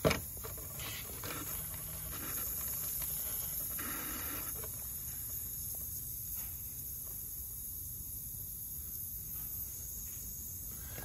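Refrigerant hissing steadily from a leaking air-conditioning valve on a 2021 Mazda 6 (GJ), a thin high hiss with a low steady rumble underneath. A brief knock sounds right at the start.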